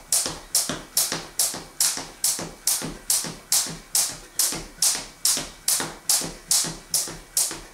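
Jump rope skipping: the rope slaps the wooden floor on every turn in a steady rhythm of about two strikes a second, each strike followed by a short swish.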